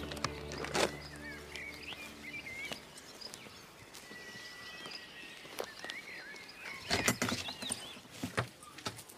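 Birds chirping in a rural outdoor setting, with footsteps. A held music chord dies away in the first couple of seconds. About seven seconds in, a cluster of sharp knocks and clatter comes as a wooden cabin door is opened.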